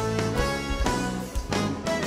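Live sertanejo band playing an instrumental passage between sung lines, guitar to the fore over bass and drums.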